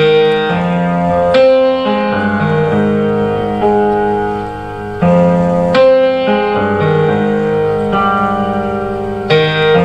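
Solo piano playing slow, sustained chords, with fresh chords struck at the start, after about a second and a half, about halfway through and near the end.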